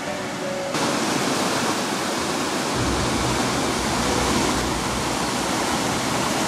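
Water pouring over a small stone weir into a mill pool: a steady, even rushing that starts abruptly about a second in, with a deeper rumble joining about three seconds in.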